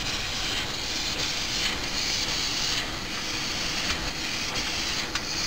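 Bottled-water filling and capping machine running: a steady mechanical din with recurring hissing surges, and a couple of sharp clicks near the end.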